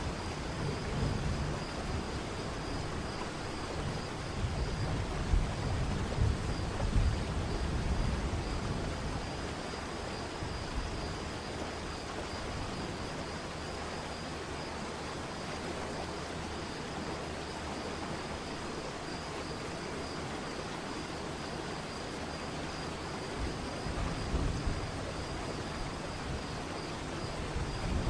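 Waterfall's steady rushing water, with a low rumble that is heavier in the first several seconds and again near the end.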